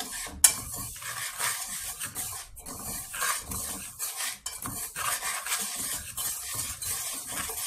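Metal wire whisk stirring dry sugar, flour and starch in a pot, scraping and clinking against the pot in repeated strokes, with one sharp clink about half a second in.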